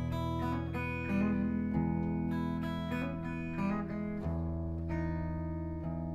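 Hollow-body electric guitar picking and strumming ringing chords without singing, the chords changing about once a second and fading a little near the end.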